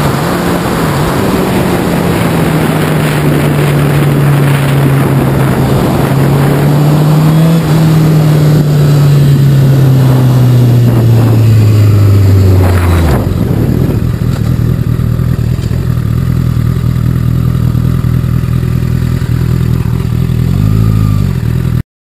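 Sport motorcycle engine running under way, heard from onboard with wind rush over the microphone. The engine note falls steadily as the bike slows in the first half, then runs lower and steadier with a short rev near the end before the sound cuts off suddenly.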